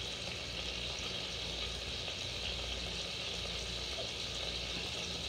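Bacon frying in a pan: a steady sizzling hiss, with a low hum underneath.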